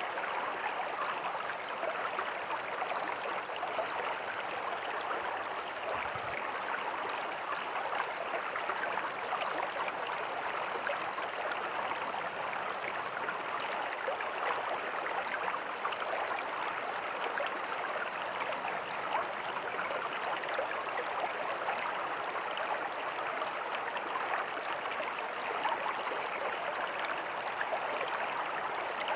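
Small creek with a tiny waterfall flowing over rocks: a steady babbling and splashing with no change.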